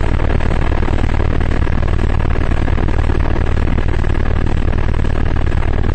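Eurocopter AS350 BA Ecureuil helicopter in flight: the steady, loud drone of its rotor and turboshaft engine, with a faint steady high whine above it.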